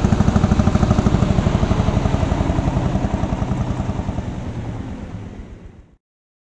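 Lanz Bulldog D6516's single-cylinder two-stroke engine running under load as it pulls a flail mulcher, with a fast, even beat of about ten firing pulses a second. The sound fades away over the last three seconds and stops.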